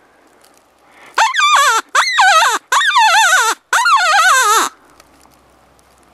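Predator call sounding for coyotes: four loud, wavering cries in quick succession, each sliding down in pitch, starting about a second in and stopping about two-thirds of the way through.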